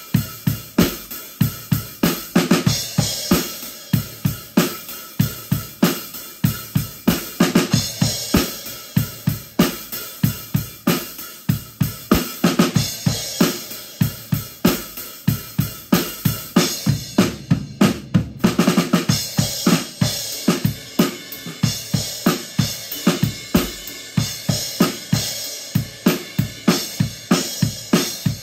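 A drum kit played in a steady groove, with kick drum, snare and hi-hat plus cymbals, about four to five hits a second. There is a brief gap about two-thirds of the way through before the playing picks up again.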